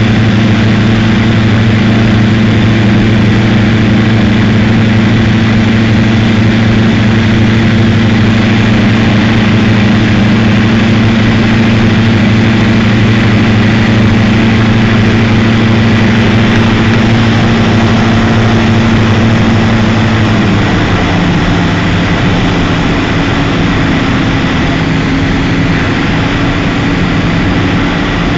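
Cessna 172's piston engine and propeller droning steadily, heard from inside the cabin. About twenty seconds in the engine note steps down in pitch and gets a little quieter as power is eased back for the approach to land.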